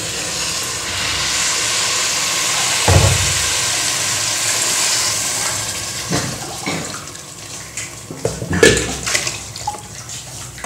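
Water pouring from a tumbler into a pressure cooker of rice and vegetables, a steady splashing pour that fades out about six seconds in. A few dull knocks come during and after the pour, the loudest near the end.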